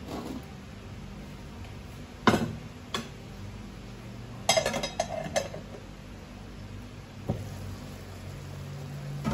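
Cookware clanking as a stainless steel pot and its lid are handled and moved on the stove, and a glass pan lid is lifted: a sharp loud knock a couple of seconds in, a click, then a short run of ringing metal clinks, and lighter knocks later, over a low steady hum.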